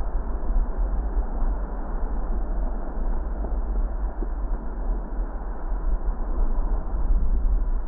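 A car driving: a steady low rumble of road and engine noise with no distinct events.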